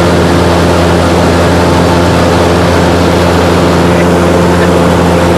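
Small propeller plane's engine and propeller droning steadily and loudly in flight, heard from inside the cabin, with a constant low hum and steady overtones.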